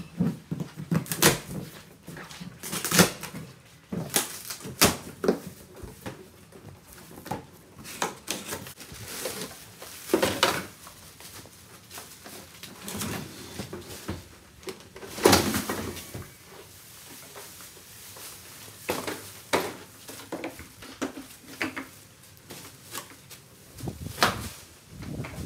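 Cardboard shipping box being opened and handled: irregular thumps, knocks and scrapes of cardboard flaps, with rustling of plastic wrap.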